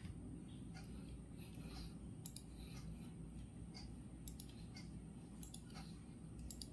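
Faint clock ticking about once a second, with a few other light clicks in between, over a low steady background rumble.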